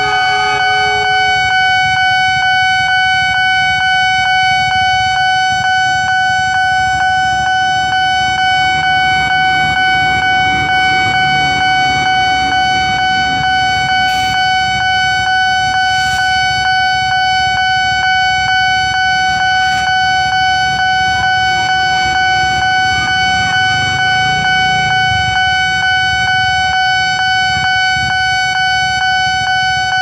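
A Japanese-style electronic level-crossing alarm is sounding its steady, rapidly repeating tone. A passenger train rolls past with a low rumble that swells and fades away near the end, and there are a few sharp clacks in the middle.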